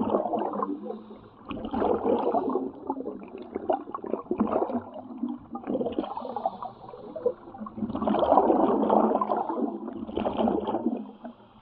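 Air bubbles gurgling underwater around an underwater-walking diving helmet, coming in irregular crackling bursts a second or two long, with the longest burst near the end.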